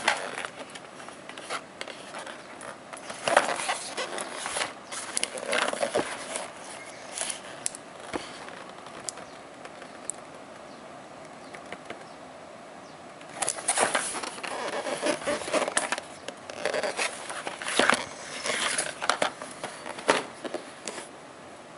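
Cardboard retail box of a gaming mouse being handled by hand: bursts of rustling, scraping and light knocks as it is gripped, turned and set down, with a quieter stretch about halfway through.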